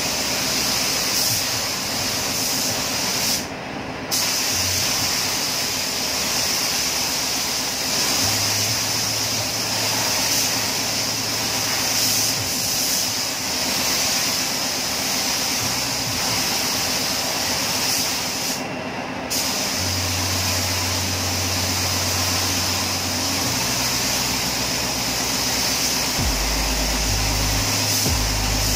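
Compressed-air paint spray gun hissing steadily while spraying paint onto a car body, with two brief breaks in the hiss, about four seconds in and again near the middle.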